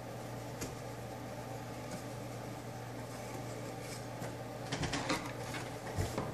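Hands handling and tying yarn around the wooden pegs of a dye board: faint rustling and rubbing over a steady low hum. The handling gets busier near the end, with a few light clicks and a soft knock on the wood.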